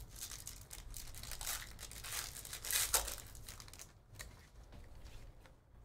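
Foil wrapper of a trading-card pack being torn open and crinkled, the crackling loudest about three seconds in, then dying down to a few light ticks as the cards are handled.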